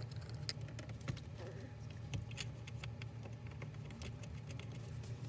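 Scattered light clicks and taps of hands and a tool working the car stereo head unit into its metal dash mounting bracket, over a faint steady low hum.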